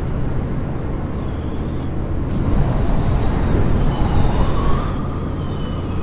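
Bushcat light sport aircraft's engine and propeller droning steadily in the cockpit on final approach, mixed with wind noise, with faint tones drifting slowly up and down in pitch.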